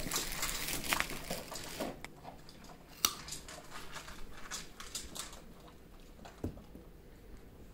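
Scattered rustling, scuffing and small clicks, with a single sharp click about three seconds in and a short knock later on.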